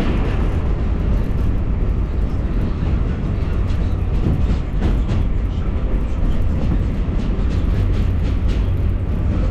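A 7 train's R188 subway car running along the elevated line, heard from inside the car: a steady low rumble, with wheel clicks over the rail joints from about halfway through.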